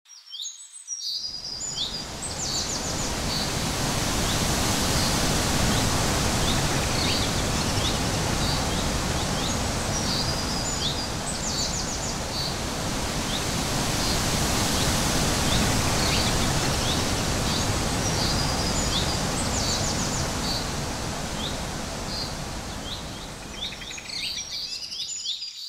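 Outdoor nature ambience: a steady rushing background noise with small birds chirping and giving quick trills every few seconds. It fades in over the first couple of seconds and eases down near the end.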